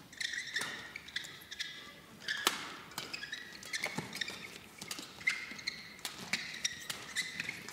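Badminton rally: the sharp crack of rackets striking the shuttlecock about once a second, with short high squeaks of players' shoes on the court mat between the hits.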